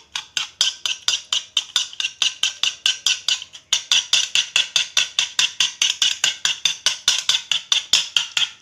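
Wire whisk beating thick yogurt in a ceramic bowl: rapid, even strokes, about six a second, the wires clicking against the bowl's sides, with a brief break about three and a half seconds in.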